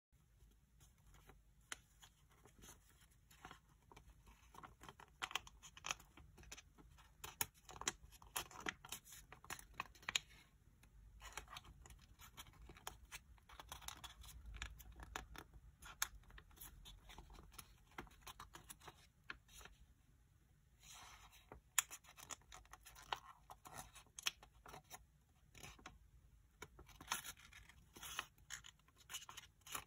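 Origami paper being folded and creased by hand: rustling, crinkling and scraping of the paper in short irregular crackles, with a couple of brief lulls.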